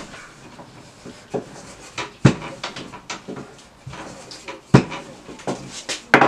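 Wooden rolling pin rolling out pizza dough on a floured wooden table, a low rustle of rolling with sharp knocks every couple of seconds as the pin strikes the table top.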